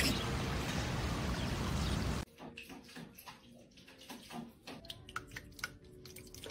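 A steady rushing hiss stops abruptly about two seconds in. Then come quiet small splashes and drips as a cat paws at the water in a bowl.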